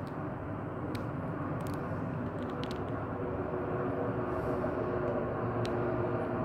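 A steady low rumble of distant engine noise with a faint hum, growing slightly louder, and a few light clicks.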